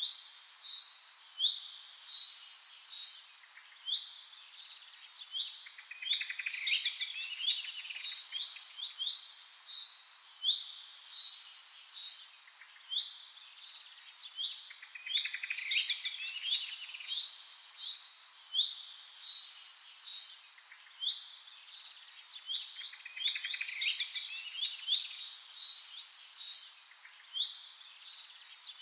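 A chorus of songbirds chirping and singing rapid high trills, swelling and fading in waves every few seconds.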